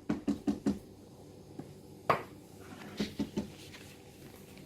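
Kitchen utensils knocking on a can and dishes: a quick run of about six light taps, a sharper single knock about two seconds in, then a few more taps a second later.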